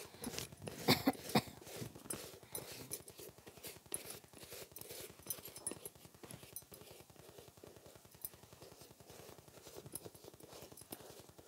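Rapid, irregular light tapping and clicking, with a louder cluster of sharp knocks about a second in.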